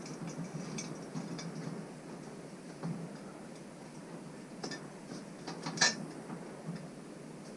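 Scattered light metallic clinks and taps of tools and motorcycle parts being handled on a workbench, with a sharper clink about six seconds in.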